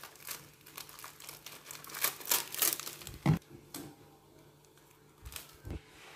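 Plastic sauce bottles being handled, tipped and squeezed over a bowl: crackling, clicking plastic, with a louder knock about three seconds in and two lighter knocks near the end.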